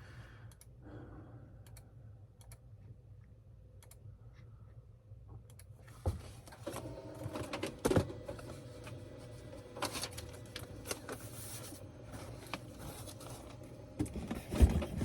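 Computer keyboard typing and clicking, sparse and faint at first, then busier and louder clattering from about six seconds in.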